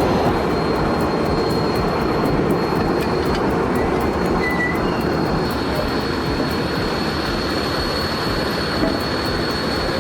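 Heavy construction machinery running: a steady mechanical rumble with a thin, high, steady whine held above it.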